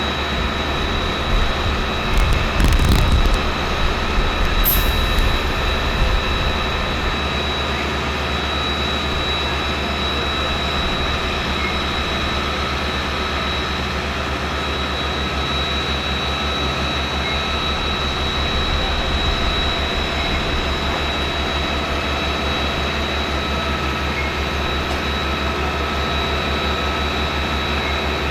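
A heavy engine running steadily with an even low throb and a constant hum, with extra low rumbling for a few seconds near the start.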